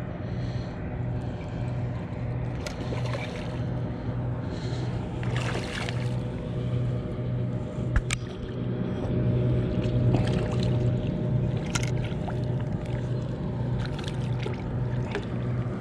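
A boat motor hums steadily with an even low throb. Short splashes come as a hooked smallmouth bass swirls and thrashes at the surface beside the boat.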